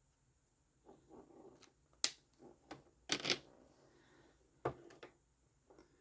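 Desk-side handling of drawing tools and paper: brief rustling, then a few sharp, irregular clicks and taps.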